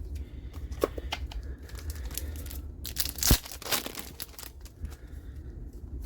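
Trading cards being handled and flipped through: light clicks and rustles, with a louder rustle about three seconds in.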